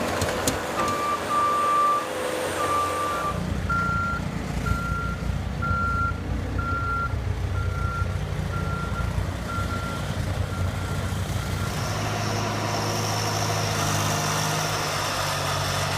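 Reversing alarm of a heavy vehicle beeping about once a second and slowly fading, over the low sound of its engine running. A second, lower-pitched backup beeper sounds a few times at the start.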